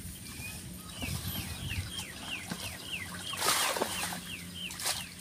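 A bird calling over and over with short falling chirps, about three a second. About three and a half seconds in, water splashes and streams off a fish net trap as it is lifted out of a flooded rice field, with a shorter splash near the end.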